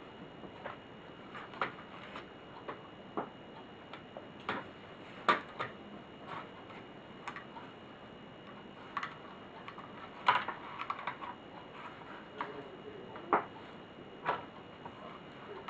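Irregular light clicks and taps of small plastic and metal laptop parts and tools being handled during disassembly, a few strong ones about five, ten and thirteen seconds in, over a faint steady high whine.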